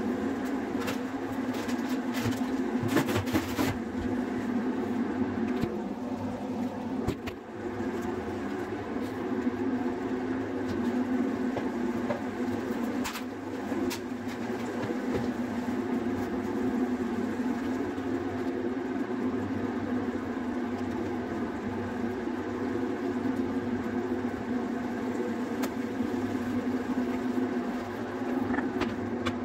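Steady hum of a kitchen appliance motor running, with a few light clicks and knocks from things being handled, around three seconds in and again around thirteen seconds.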